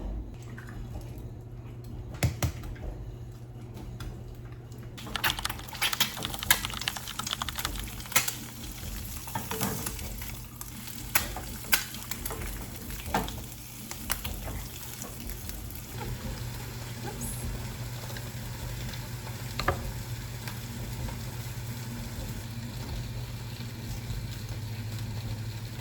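Food frying in a pan, a hiss over a steady low hum, with a utensil stirring and tapping against the pan in scattered sharp clicks and knocks, busiest in the first half.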